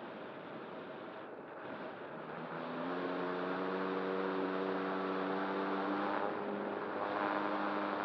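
Air rushing past the model glider, then its electric motor and propeller start up about two seconds in and run steadily as a droning hum.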